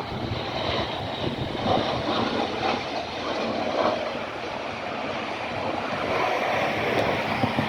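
Hawker business jet on approach to land, a steady rushing jet noise that grows a little louder and brighter toward the end.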